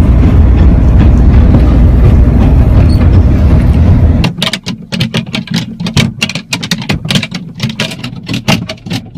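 Loud, steady rumble of a subway train car in motion, heaviest in the low end, for about the first four seconds. Then it cuts off abruptly and is followed by a choppy run of short, sharp, irregular sounds.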